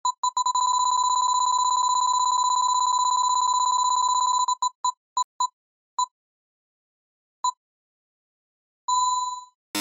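Electronic beeping quiz sound effect at one steady pitch, like a roulette picking an answer. A rapid run of beeps slows to single beeps more than a second apart, ending in one longer beep.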